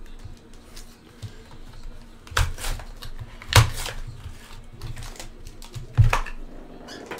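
Cardboard trading-card hobby box being opened by hand: handling and scraping of the box and its lid, with a few sharp knocks, the loudest about three and a half and six seconds in, as the foil-wrapped pack comes out and is set down on the table.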